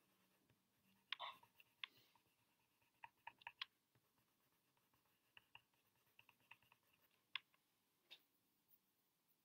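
Near silence broken by faint, scattered clicks and taps of a coloured pencil working on paper.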